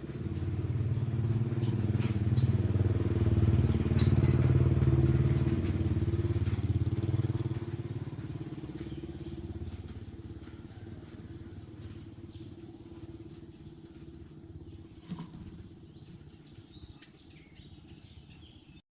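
An engine running, growing louder over the first few seconds and then slowly fading away, with a few faint bird chirps above it. It cuts off suddenly near the end.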